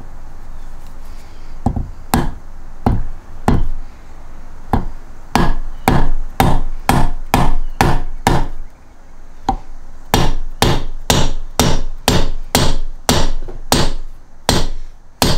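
A mallet strikes a machined aluminum bearing driver again and again, driving a bearing into its bore in the aluminum rear case half of an NSG370 six-speed transmission. The sharp knocks come about two a second, pause for a second or so past the middle, then start again.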